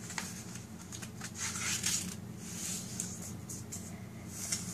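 A sheet of paper being folded in half lengthwise: repeated rustling and sliding swishes with a few sharp crisp ticks as it is handled and creased.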